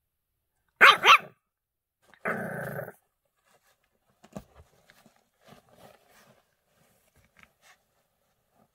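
English Bulldog puppy giving two quick, high-pitched barks about a second in, then a short growl about two seconds in, followed by faint scattered small sounds.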